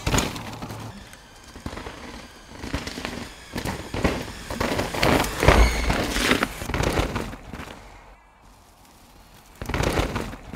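A mountain bike ridden fast over a wet, rocky trail: tyres tearing through mud and grit with many sharp clicks and knocks from stones and the bike. It swells loudest three times, at the start, through the middle and near the end, as the rider rushes past.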